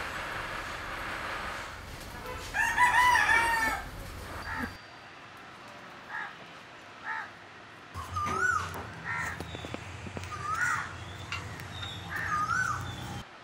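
A rooster crows once, loudly, about three seconds in. Later, short rising-and-falling bird calls repeat every couple of seconds.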